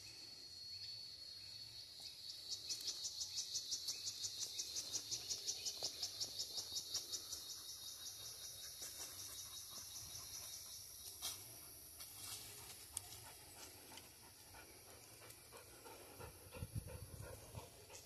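Insects buzzing steadily at a high pitch, with a fast pulsing chirp of about five pulses a second from about two seconds in to about seven. A dog pants, and there are a few clicks and low thumps of rustling in dry leaves near the end.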